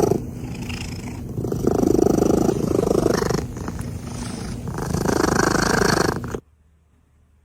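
Domestic cat purring loudly and close, in alternating stronger and weaker swells with each breath, stopping abruptly about six seconds in.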